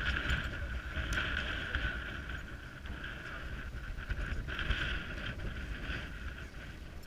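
Wind rumbling on the microphone, over a steady higher hiss that swells slightly now and then.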